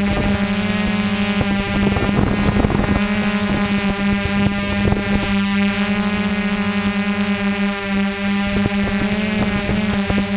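Multirotor drone's propellers humming steadily at one pitch while it flies low and slow, with irregular crackles and clicks over the hum.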